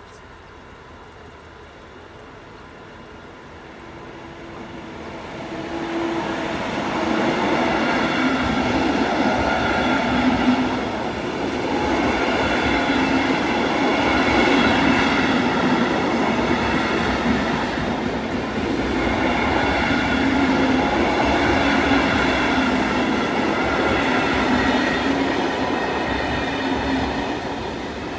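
Passenger train of blue-and-white coaches passing close by at a level crossing. It approaches over the first few seconds, then the coaches roll past steadily for the rest of the time, a loud rumble with a steady ringing whine over it.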